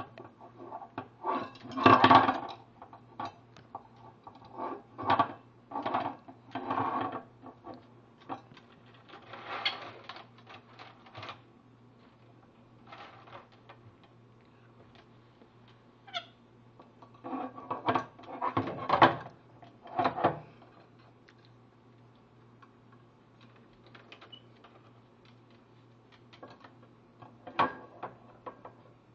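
Rainbow lorikeet's short, harsh chattering calls in scattered bursts, several close together a couple of seconds in and again past the halfway mark, with quiet gaps between.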